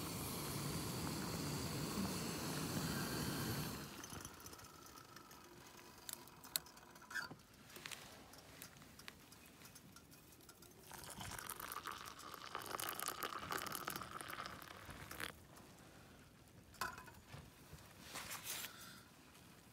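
Canister gas stove (MSR Pocket Rocket 2) hissing steadily under a pot of boiling water, then shut off suddenly about four seconds in. After that come light clinks and knocks of a metal pot and mug, and a stretch of hot water being poured, about eleven to fifteen seconds in.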